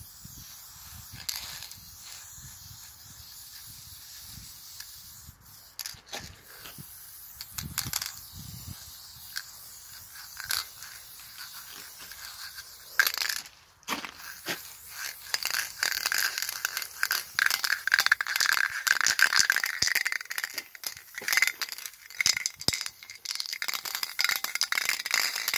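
Aerosol spray-paint can hissing as paint is sprayed, in a few strokes with short pauses. From about halfway the can is shaken, its mixing ball rattling rapidly and loudly.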